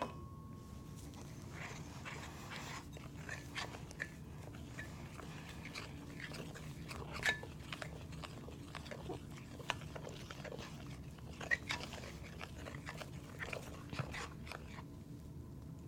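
Spoon stirring thick fudge mixture in a bowl: scattered light clicks and scrapes against the bowl.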